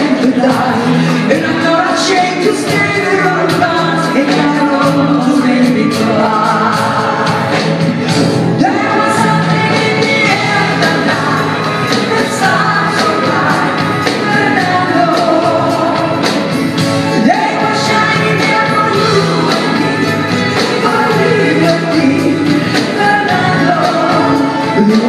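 Woman singing a song live with a band of drum kit and keyboards playing behind her.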